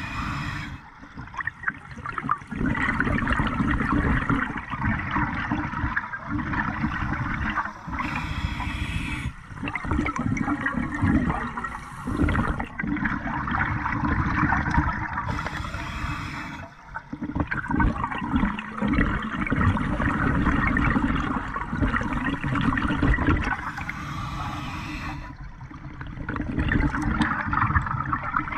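Open-circuit scuba breathing heard underwater: long stretches of exhaust bubbles gurgling from the regulator, broken every several seconds by a short hiss as the diver breathes in.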